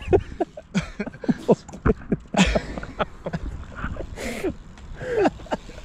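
A man laughing, with short broken bits of voice and a couple of breathy bursts.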